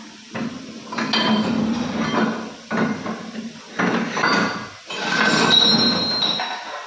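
Metal-on-metal workshop noise from work on a lorry gearbox, coming in several bursts of a second or two each with short gaps, with a high metallic ring in the last burst.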